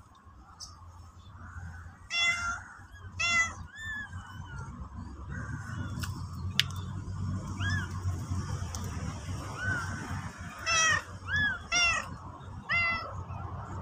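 Cat meowing: a series of short, high-pitched meows, several in quick succession near the end.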